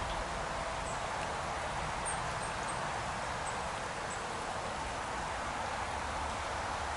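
Small gravel-bed stream running steadily over a shallow riffle, an even rushing of water with no break.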